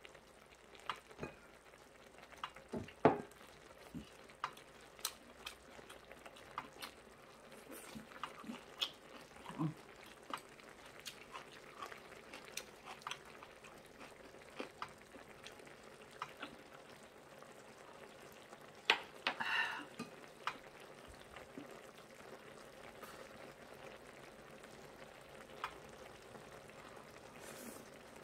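Mukbang eating sounds: metal chopsticks clicking against bowls and side dishes, with soft chewing of braised kimchi and pork, as many small scattered clicks; a louder flurry of sounds about 19 seconds in.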